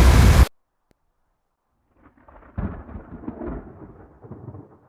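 A loud rushing storm noise cuts off abruptly. After a moment of silence, thunder rumbles, swelling about two and a half seconds in and then fading unevenly.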